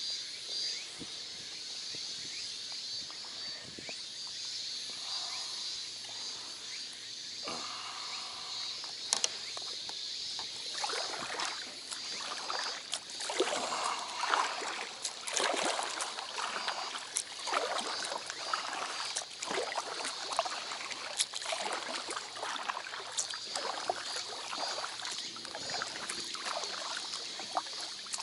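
A packraft's paddle splashes and dips in lake water with repeated strokes from about a third of the way in. Under it runs a steady, high insect buzz.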